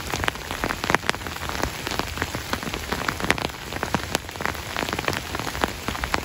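Rain falling, with many separate drops striking a surface at irregular moments over a steady hiss.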